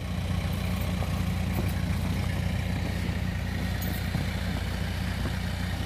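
Vehicle engine idling steadily, a low even hum with no change in speed.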